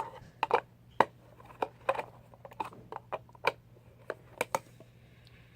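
Sharp plastic clicks and taps at irregular spacing, a dozen or so over about four and a half seconds, as a fidget cube is fitted back into its plastic case.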